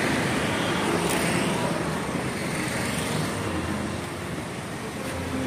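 Road traffic going by: the steady noise of cars and motorbikes passing on a city street.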